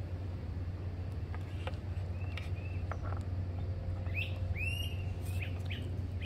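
Birds chirping outdoors, with a short run of sweeping calls about four seconds in, over a steady low hum and a few faint clicks.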